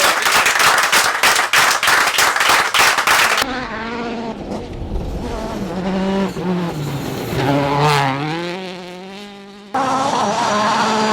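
A dense crackling clatter for the first three seconds or so. Then a Citroen DS3 WRC rally car's turbocharged four-cylinder engine revs up and down through gearchanges, its pitch sliding down and fading near the end. It cuts abruptly to another stretch of the engine running at high revs.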